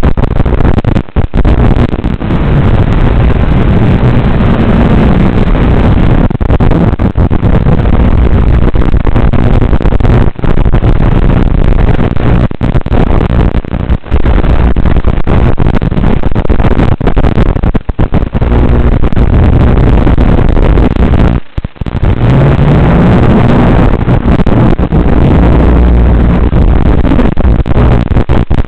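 Blade Torrent 110 FPV quadcopter's brushless motors buzzing in flight with wind rushing, heard as a loud, harsh, muffled noise that briefly cuts out a few times; the motor pitch rises a couple of times as the throttle comes up.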